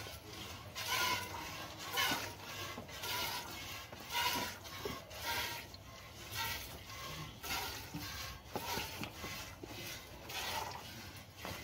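Jets of milk squirting into a steel pail as a cow is milked by hand, a rhythmic hiss about once a second with each squeeze of the teat.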